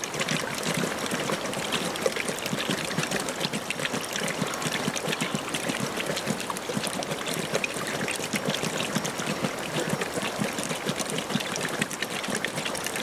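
Several lions lapping water together, a continuous wet splashing made of many quick, irregular laps.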